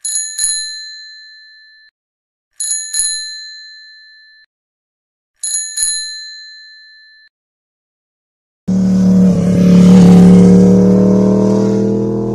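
A bicycle bell rung three times, each a quick double ding that rings on and dies away. Then, about nine seconds in, a motor vehicle engine starts running loudly, its pitch rising slowly as it revs.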